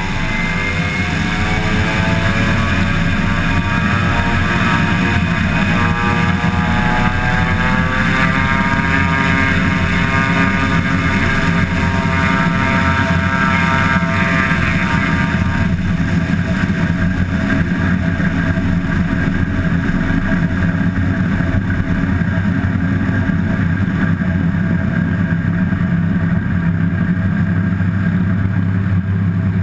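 Pilatus PC-6 Porter's engine and propeller building to take-off power: a rising whine over the first several seconds over a loud, steady drone. About halfway through, the higher whine drops away while the steady drone carries on.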